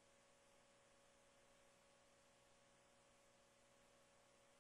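Near silence: a faint steady hiss with a thin steady hum tone.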